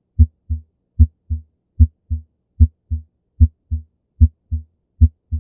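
Normal heart sounds through a stethoscope placed at the apex of the heart: a steady lub-dub, about seven beats at roughly 75 a minute. Each beat is a louder, dominant lub (S1, the atrioventricular valves, above all the mitral valve, closing) followed by a softer dub (S2, the semilunar valves closing), with clean silence between beats.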